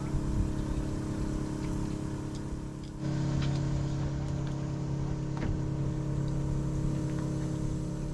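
An engine running steadily with an even hum. Its pitch and level step up about three seconds in.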